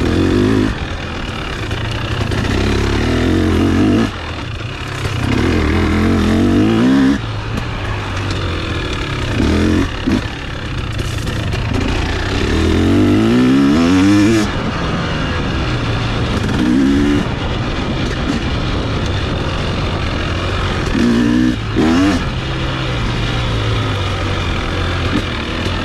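KTM two-stroke dirt bike engine revving up and backing off over and over. The pitch climbs under throttle and drops away each time the throttle is shut, with a long steep climb about halfway through.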